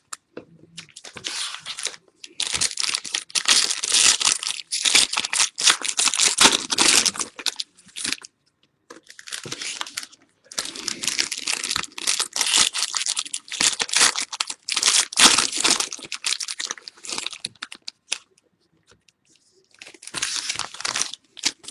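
Plastic wrapping torn and crinkled by hand in three long stretches with short pauses between them: a sealed box of football trading cards and its packs being opened.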